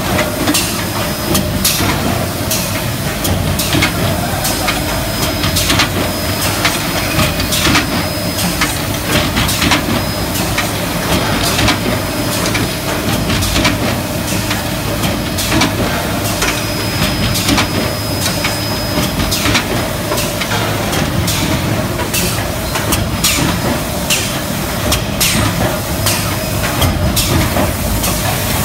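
Aluminum hot-forging machinery running: a loud, steady drone and hum with frequent irregular metallic clatter and knocks.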